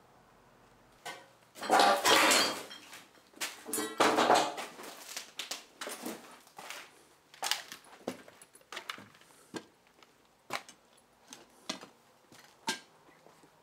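Footsteps through debris on a hard floor: clattering, crunching bursts twice in the first few seconds, then scattered sharp knocks and clicks from steps and loose objects.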